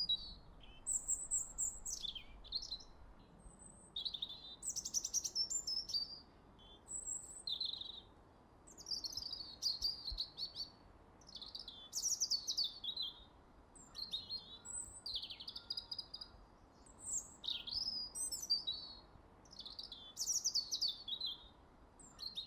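Birds chirping: short, quick high phrases, many sliding down in pitch, repeated every second or so over a faint steady hiss.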